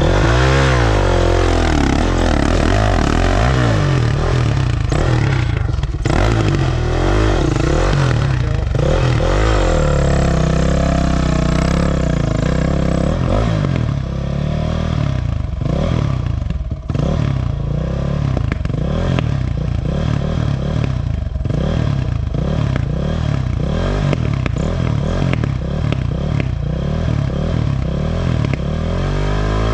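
Honda CR500 two-stroke single-cylinder dirt bike engine running and revving up and down in bursts while climbing a rough, rocky trail, with occasional knocks and clatter from the ground and the bike.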